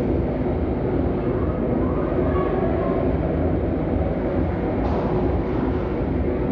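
Steady low rumble of ice-arena background noise, with faint distant shouts from play at the far end of the rink and a faint sharp click about five seconds in.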